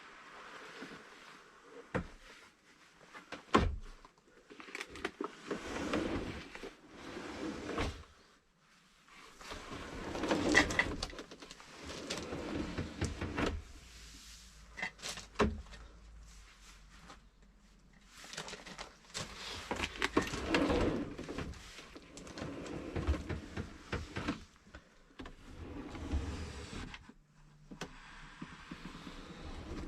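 Car fridge sliding box being pulled out and pushed back on its slide rails several times, each slide a rumbling run of a couple of seconds, with sharp knocks between slides as it stops or is handled.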